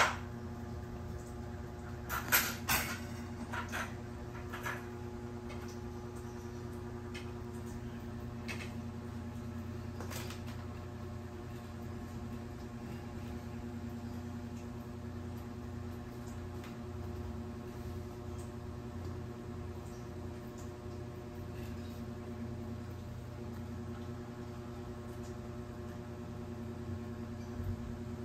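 Steady low mechanical hum, like a household appliance or fan motor running. A few light clicks and taps come in the first few seconds and once more about ten seconds in.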